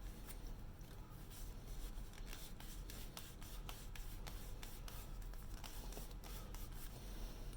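White Scotch-Brite pad rubbed by hand over an espresso machine's boiler cap, a faint, continuous scratchy scrubbing made of many quick strokes, polishing the cap to a final shine.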